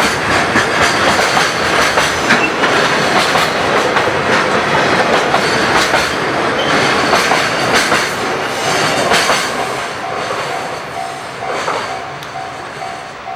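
A freight train passing at close range, its wheels clattering over the rail joints, growing quieter in the last few seconds. From about ten seconds in, a level crossing alarm rings with a steady repeating ding.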